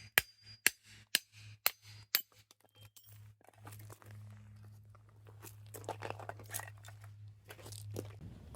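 Firewood being split into kindling: sharp knocks about twice a second for the first two seconds, then softer cracking and splintering of wood.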